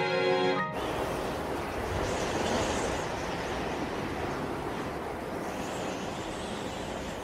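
Dramatic score cuts off sharply under a second in, giving way to a steady rushing, rumbling noise: an animated sound effect of a vehicle in motion.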